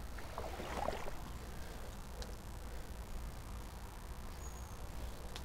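Shallow river running over stones, a steady, gentle rush with a low rumble underneath and a few faint clicks in the first couple of seconds.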